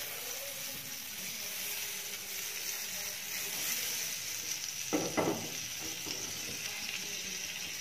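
Salted butter sizzling as it melts and foams in a hot nonstick pan, a steady hiss, with a short knock about five seconds in.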